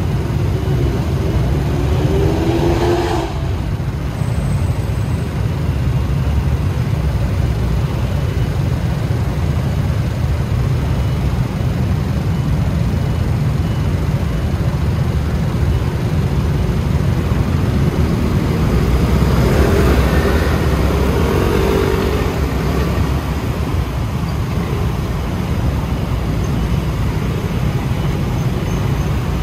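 Riding a scooter through city traffic: a steady low rumble of wind and road noise on the microphone, with engine notes rising in pitch near the start and again about two-thirds of the way through.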